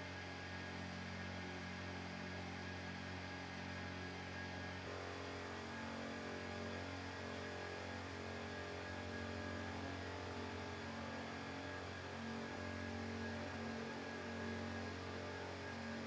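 Steady electrical or mechanical hum with a faint hiss beneath it, its tone shifting slightly a few times.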